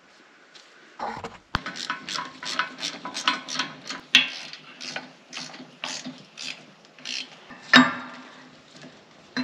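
Hand ratchet clicking in quick repeated strokes with small metallic clinks, tightening the hydraulic oil-line fittings on a sprayer's wheel motor; one louder metal clank just before the end.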